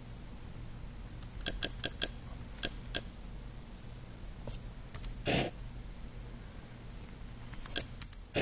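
Menu-navigation clicks: a quick run of about six short clicks, then a single click and a longer swish about five seconds in, and a few more clicks with another swish near the end, over a faint steady hum.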